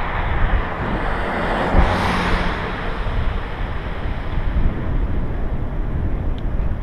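Wind buffeting the microphone of a camera on a moving bicycle, a steady rushing noise. A car swells past in the opposite lane about two seconds in.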